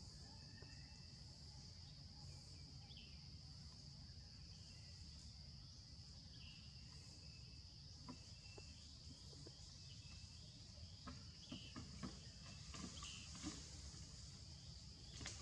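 Faint outdoor ambience: insects droning steadily on one high note, over a low background rumble. From about eight seconds in come scattered soft clicks and ticks, with a few faint short chirps.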